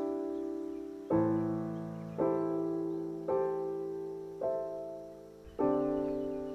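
Slow piano music laid over the footage: a chord struck about once a second, each one ringing out and fading before the next.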